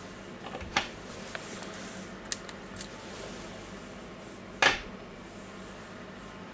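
A few light clicks and clinks of a screwdriver, screws and the plastic housing being handled while a cordless impact wrench is taken apart, the loudest about four and a half seconds in.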